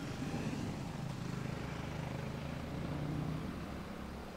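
Jet airliner engines heard from a distance: a steady low rumble, easing slightly near the end.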